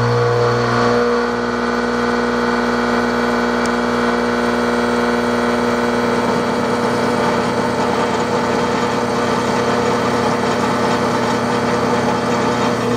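Haas TM-1 toolroom mill driving an ISCAR T490 indexable cutter through a steady 0.150-inch-deep cut in steel: an even milling whine and hum that holds until near the end. The cut runs smoothly, which the operators call effortless.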